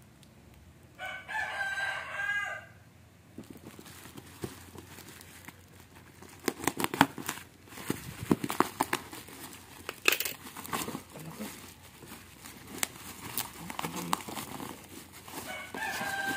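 Black plastic mailer and bubble wrap crinkling and tearing as a parcel is opened by hand, in quick irregular crackles that are loudest in the middle. A rooster crows once about a second in and again near the end.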